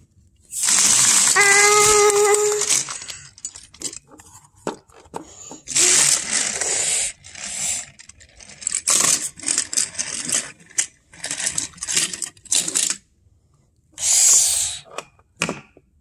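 Plastic toy trains and a plastic toy shed being handled and knocked about on a wooden floor: irregular clattering, rattling and scraping. A brief held pitched tone comes about a second in.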